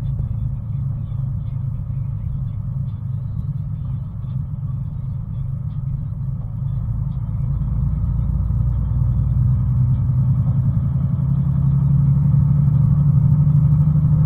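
Steady low engine and road rumble of a moving vehicle, heard inside its cab, growing louder in the second half as a steadier low hum builds.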